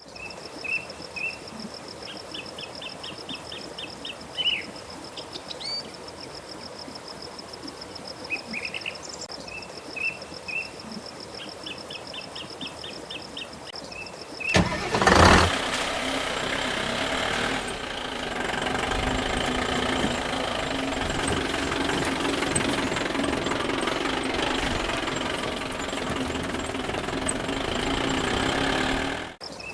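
Short chirping trills over a steady high whine, then about halfway in a loud burst as a vehicle engine starts and keeps running steadily.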